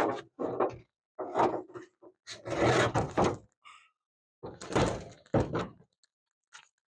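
A series of irregular thunks and rattling clunks from a Chevy pickup's hood being wrestled off its hinges, in short separate bursts.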